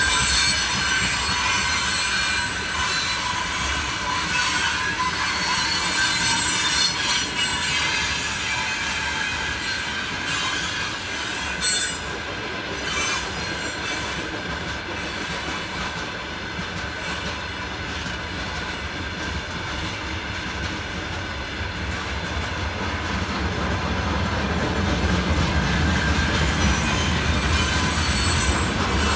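Freight train wagons (open gondola cars, then loaded timber flatcars) rolling past on the rails, with wheels rumbling and clattering and a steady high wheel squeal, plus a single knock about twelve seconds in. The low rumble grows louder over the last few seconds.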